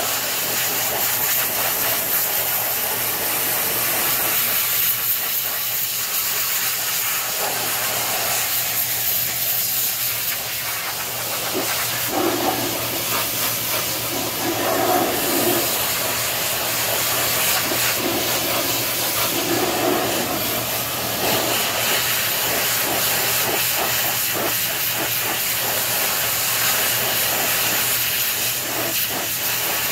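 Hot-water pressure washer spraying onto a John Deere 720 pony motor and its transmission: a steady, loud hiss of the jet against the metal, shifting a little as the wand moves, with a low steady hum underneath.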